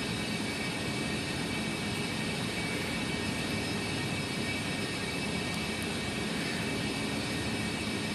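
Steady background hum and hiss with faint steady tones, even in level throughout; no distinct lock-picking clicks stand out.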